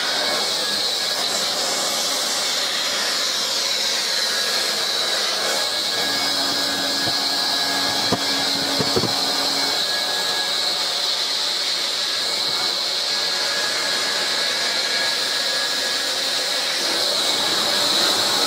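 Hot-air plastic welding gun blowing a steady high hiss while tacking the seams of a plastic filter box, with a couple of small knocks about eight to nine seconds in.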